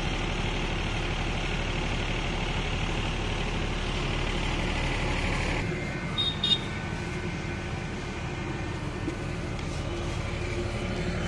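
Steady drone of a running generator engine. About six seconds in the drone eases a little and a couple of short sharp clicks sound.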